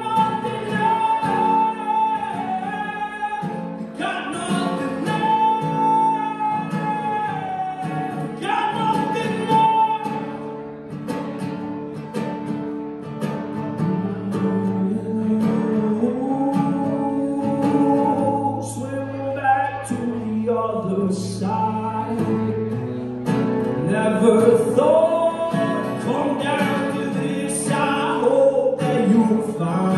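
A man singing with guitar accompaniment, a live acoustic song performance with long held sung notes.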